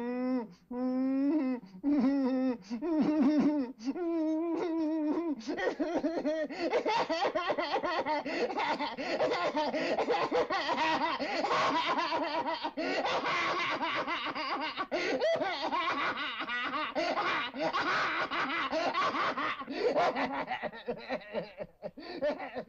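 A man laughing in short bursts, then from about five seconds in many voices laughing over one another in a dense din.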